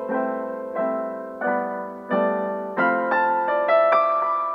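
Background music: a gentle piano melody, single notes struck at an even pace, each dying away before the next, the last one left ringing near the end.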